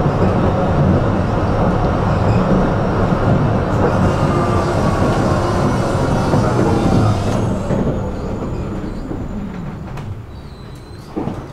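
Tram running along its rails, heard from inside the car: a loud, steady rumble of wheels and running gear with a whine that falls in pitch midway. The rumble then fades as the tram slows to a stop, and a short knock comes near the end.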